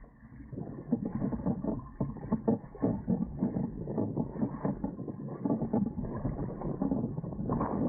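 Water rushing and slapping irregularly against the hulls of a Dart 18 sailing catamaran under way, a dense run of small knocks and splashes.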